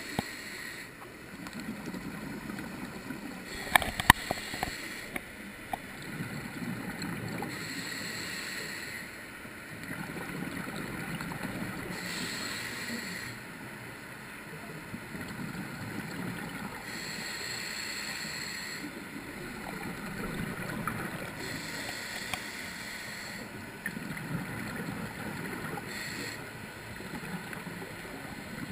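Scuba diver breathing through a regulator underwater: a hiss on each inhale alternates with a gurgle of exhaled bubbles, about one breath every four to five seconds. A few sharp clicks come about four seconds in.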